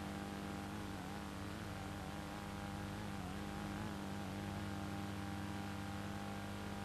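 Steady electrical hum with hiss, made of many fixed tones stacked from the bass upward, with no distinct event. A faint wavering tone drifts in the middle range in the middle seconds.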